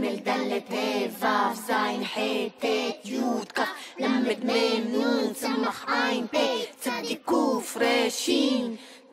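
Music with a voice singing a song in quick, evenly paced syllables over a steady held note, which drops away just before the end.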